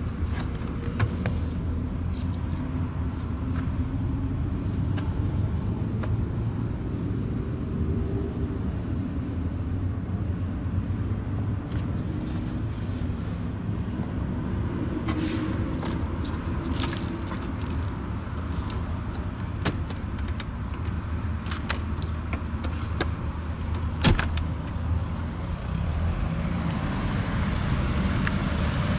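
The BMW E46 320's petrol inline-six idling steadily, a low even hum. Over it come scattered light clicks and knocks from the owner's manual and glove box being handled, with one sharper knock near the end.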